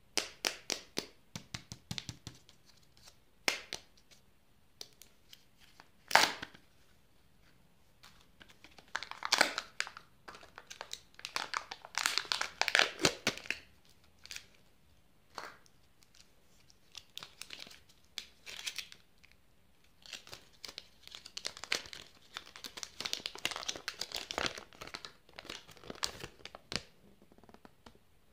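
Chocolate and candy wrappers being crinkled and torn open by hand: irregular bursts of crackling with sharp rips, the loudest about six seconds in.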